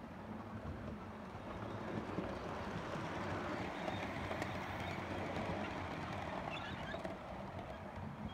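Model train, a locomotive hauling a rake of coaches, rolling along the layout's track close by; the running noise swells as it comes past and eases slightly near the end.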